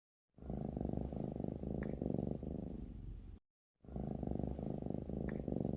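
A cat purring: a rapid, rumbling pulse in two bouts of about three seconds each, split by a short silent break, each bout starting and cutting off abruptly.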